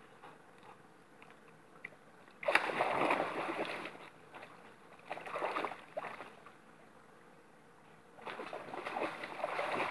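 A dog wading and splashing through shallow river water, in three bouts of splashing starting about two and a half, five and eight seconds in, the first the loudest.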